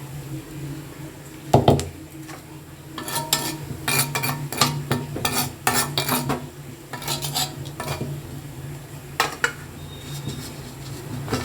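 A metal spatula scraping and clinking against a kadai as semolina is stirred and roasted, with one loud knock about a second and a half in and runs of sharp clinks through the middle and again near the end. A steady low hum runs underneath.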